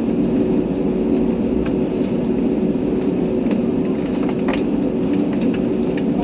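Steady drone of an airliner's cabin in flight: engine and airflow noise, even in level, with a constant low hum running under it.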